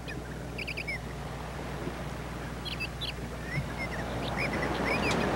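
Small bird chirping in short, scattered calls over a steady low hum, with a hiss that grows louder toward the end.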